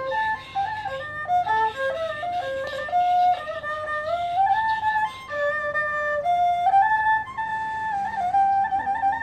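Tro Khmer, a Cambodian bowed spike fiddle, played solo: a single melodic line moving in short stepped notes with small slides and ornaments, settling into longer held notes in the second half.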